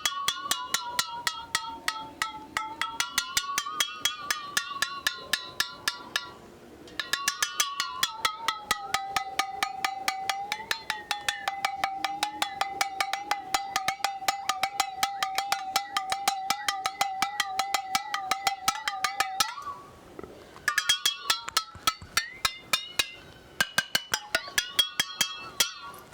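Aluminium squeeze bottle holding a little water, struck over and over in fast, even strokes. Each strike rings with a clear metallic pitch that wavers and slides as the water moves inside, like a water gong, and the playing stops briefly twice.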